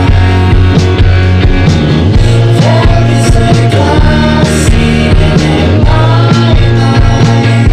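Lo-fi, 1960s British-invasion-style rock song playing, with a steady beat and a sliding melodic line over it.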